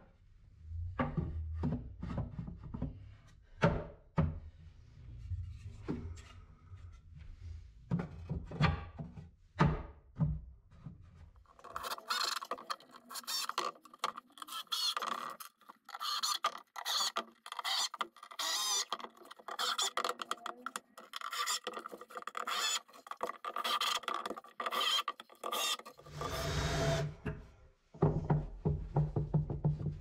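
Pine boards being set down and knocked into place, a series of knocks and thuds, then about twelve seconds in a cordless drill driver starts driving screws into the boards, its motor whirring in many short runs.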